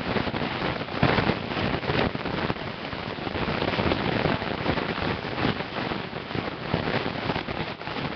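Dense crackling and rustling with many small clicks and knocks: hands handling a bowl and a can close to the microphone.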